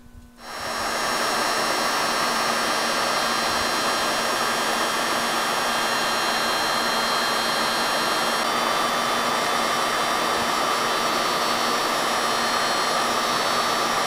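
Electric heat gun switching on and blowing steadily, with a fan whine. It is heating solder-seal butt connectors, melting the solder rings and shrinking the tubing onto the wire splices.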